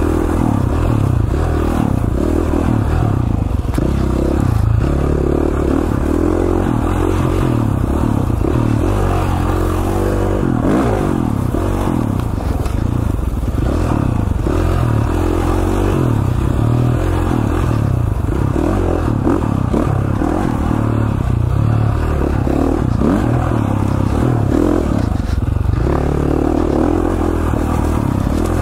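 KTM 450 four-stroke single-cylinder dirt bike engine under way on a trail, its pitch rising and falling over and over as the throttle is opened and closed.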